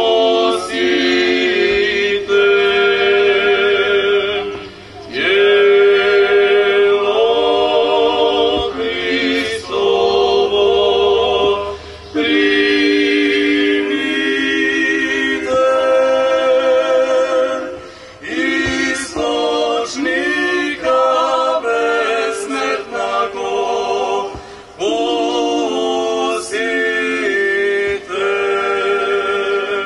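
Small mixed vocal group of men and women singing a cappella, holding chords in several parts, with short breaks between phrases.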